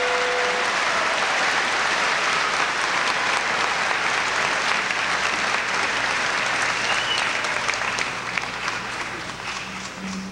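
Large theatre audience applauding, a dense steady clapping that thins out over the last two seconds into scattered claps.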